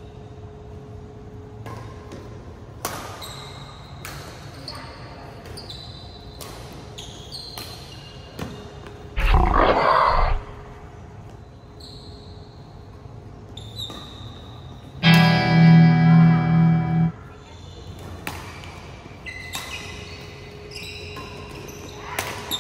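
Badminton doubles rally: rackets striking the shuttlecock in sharp cracks and shoes squeaking on the court floor. Two loud added sound effects cut in: a noisy roar-like burst about nine seconds in, lasting about a second, and a short pitched musical sting for about two seconds around fifteen seconds in.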